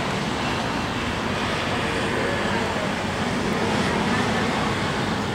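Steam-hauled passenger train pulling away, its coaches running on the rails with a steady rumble.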